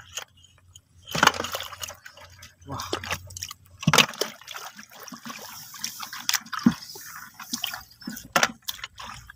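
Shallow water splashing and sloshing in irregular bursts, with several sharp splashes, the loudest about four seconds in.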